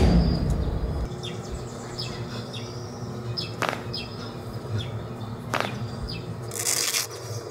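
Birds chirping: short falling calls repeated every second or so over a low steady hum, with two sharp knocks, a little before and a little after the middle, and a brief hiss near the end.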